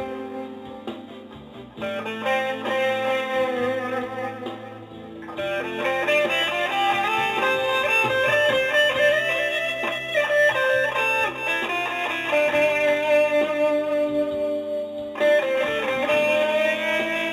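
Guitar music: a slow melody of held notes, with a note bent upward in pitch near the end.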